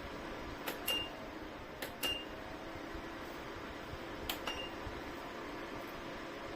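Ceramic fan heater running with a steady fan hiss. Three times, a double click of a control button is answered by a short high beep as settings are changed.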